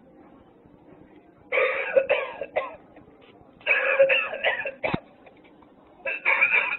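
Novelty coughing ashtray playing its recorded smoker's cough in three fits, the last starting near the end, with a sharp click after the second.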